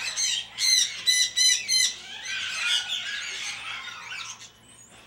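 Parrot squawking: four loud, harsh calls in quick succession in the first two seconds, then softer chattering calls that fade out.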